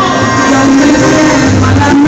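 Loud cumbia-style dance music played over a sound system, with a steady bass beat and sustained melody.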